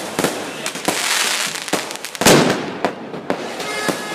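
Aerial fireworks bursting: an irregular run of sharp bangs and crackles over a fizzing hiss, the loudest bang a little past two seconds in.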